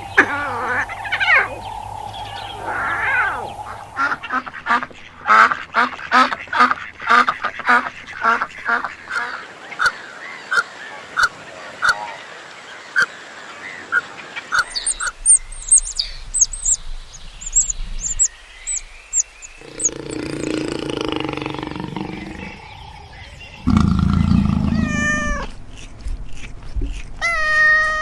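A string of different animal calls one after another, among them a fast run of duck quacks, some high chirps and low drawn-out calls.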